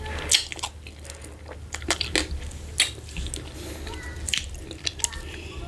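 Close-miked eating of fufu with slimy ogbono soup: wet mouth smacks and squelchy chewing, with irregular sharp clicks several times a second.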